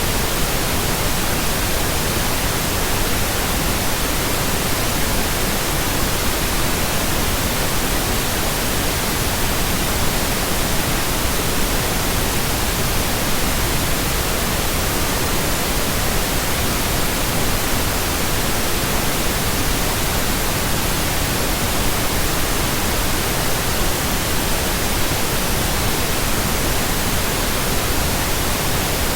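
Steady synthetic pink noise: an even, unchanging hiss with no tones or breaks.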